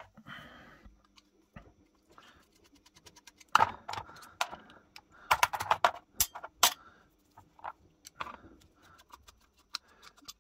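Small steel gun parts and hand tools clicking and clinking during disassembly of an antique percussion pistol's trigger and spring mechanism. There is a run of sharp metallic clicks, loudest in two clusters in the middle, with light handling noise between them.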